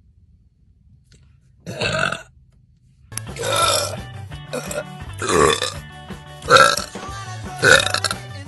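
A young woman burping loudly: one burp about two seconds in, then five more in quick succession over background music that starts suddenly about three seconds in.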